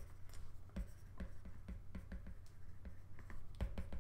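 Stylus tapping and sliding on a tablet's glass screen while handwriting words: a run of quick, light taps, several a second.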